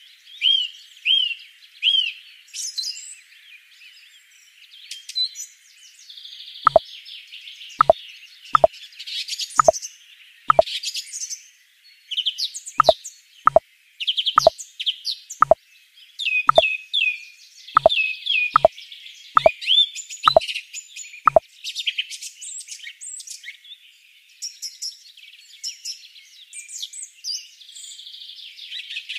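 Birds chirping and singing throughout, with a run of about fifteen short plops in the middle stretch, a little under one a second.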